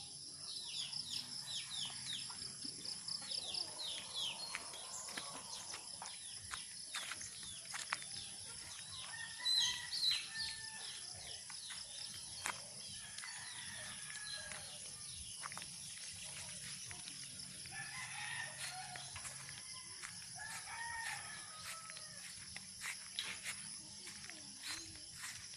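Farmyard chickens: roosters crowing and hens clucking, with many quick bird chirps, over a steady high-pitched ringing. The loudest calls come about ten seconds in.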